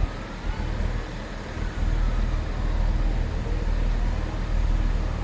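Great Western Railway Class 800 train of two coupled units passing through the station without stopping: a steady rush of rail and traction noise with heavy low rumble, growing louder about two seconds in.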